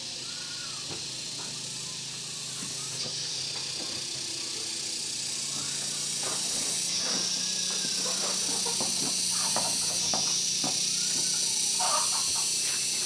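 A steady high-pitched insect drone, growing louder about halfway through. Scattered light clicks and taps, like small metal engine parts being handled, run through it.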